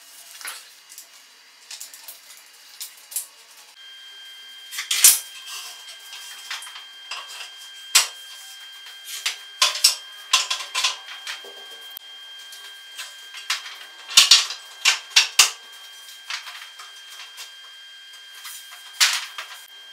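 Wooden parts of a knock-down shelving stand being handled and fitted together by hand: irregular sharp knocks and clacks of wood on wood, with louder clusters about five seconds in and again around fourteen seconds.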